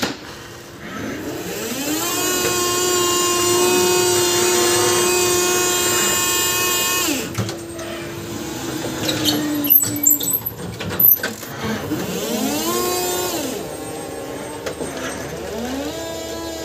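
Electric hydraulic pump motor of a BT Reflex reach truck whining as the mast lifts a pallet. The whine rises in pitch, holds steady for about five seconds and drops away. A few sharp clicks follow, then a shorter rise-and-fall whine, and the whine starts again near the end.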